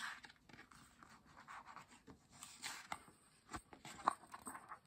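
Pages and cover of a paperback picture book rustling and brushing as it is handled and opened, with a few faint taps among the rustles.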